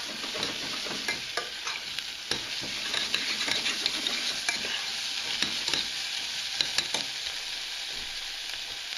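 Diced Hokkaido pumpkin and onion sizzling in olive oil in a stainless steel saucepan, with a metal tablespoon scraping and clicking against the pan as the pieces are stirred.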